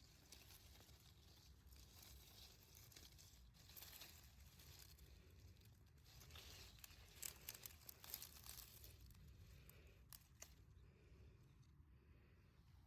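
Faint rustling and crinkling, irregular and sharpest about two-thirds of the way in, with a few light clicks.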